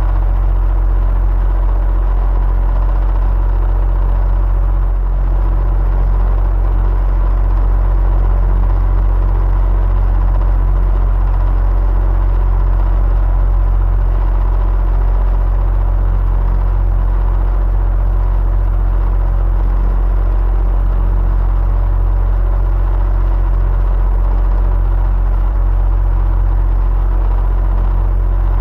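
Electric fan running steadily: a deep low motor hum under an even whir of air, with a faint thin steady tone on top.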